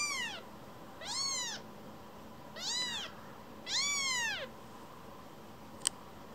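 Baby tabby kitten mewing four times, each mew rising then falling in pitch, about a second apart, the last one longer. A single sharp click near the end.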